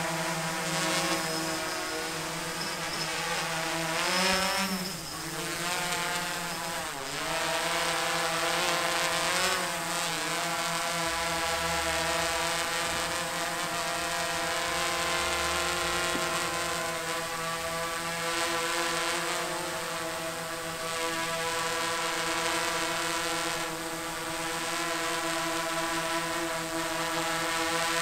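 F330 quadcopter's four brushless motors and propellers buzzing in flight, a steady multi-tone whine. The pitch dips and rises several times in the first ten seconds as the throttle changes, then holds steady.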